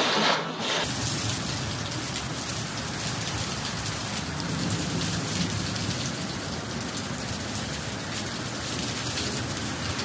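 Steady heavy rain, an even dense hiss. About a second in it takes over from a brief stretch of storm wind.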